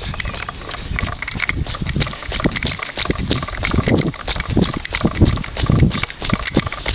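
A runner's footsteps striking rain-wet asphalt in a steady rhythm, with low thuds from the jostled handheld camera.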